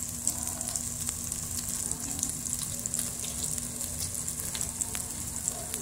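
Flour-battered minute steaks frying in oil in a pot: a steady sizzle with scattered small pops and crackles.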